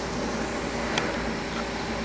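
Steady wash of hurricane wind and heavy wind-driven rain, with a faint steady hum underneath and one short tap about halfway through.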